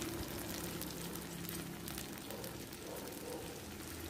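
Fish-sauce sauce simmering over fried shallots in a nonstick pan: a soft, steady bubbling crackle as the liquid cooks down.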